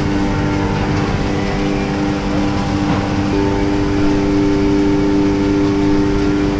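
Industrial film-winding machine running rolls of chrome vinyl film: a steady mechanical hum with several held tones, one more tone joining about three seconds in.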